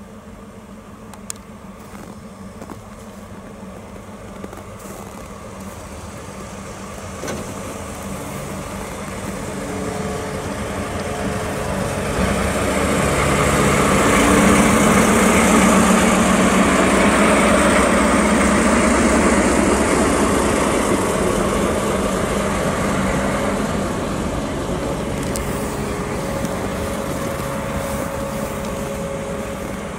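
A Russell snowplow train, a DE15 diesel locomotive pushing a wedge plow through deep snow, passes by. Its steady engine note and the hiss of snow being thrown aside build as it approaches, are loudest as it goes past about halfway through, then fade slowly as it moves away.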